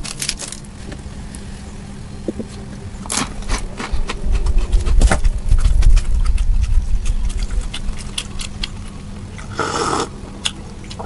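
Dry, crisp biscuit being snapped and crunched: scattered sharp crackles and clicks, with dull knocks on the table about halfway through and a short rustle near the end.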